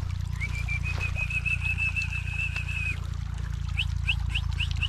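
Puppy whining at the edge of running water: one long high, slightly wavering whine, then a quick run of short rising whimpers near the end, over the steady rush of a stream.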